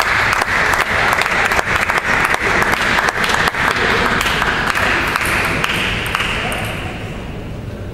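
Spectators and team-mates applauding just after a point is won in a table tennis match, a dense patter of claps that fades out about seven seconds in.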